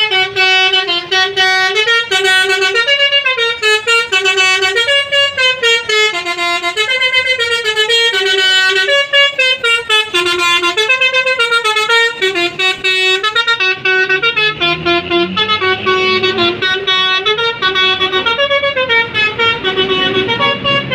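Basuri musical bus horn (a 'telolet' horn) playing a continuous melody, one clear tone stepping up and down from note to note. A low rumble joins in for the last several seconds.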